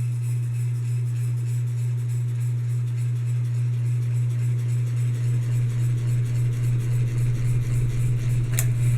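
Hampton Bay Landmark Plus ceiling fan motor running with a steady low electrical hum, the humming that this fan makes on some of its speed settings. A single sharp click comes near the end.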